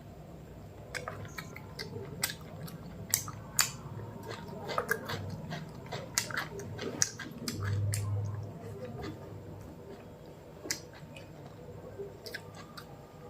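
A person chewing food close to the microphone: a run of small wet mouth clicks and smacks. A brief low hum comes about eight seconds in, and the clicks thin out after that.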